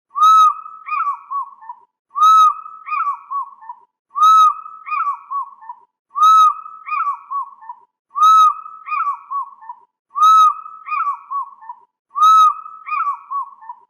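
Fish eagle calling: a loud ringing first note followed by a quick falling series of shorter yelps. The same call repeats identically about every two seconds, seven times.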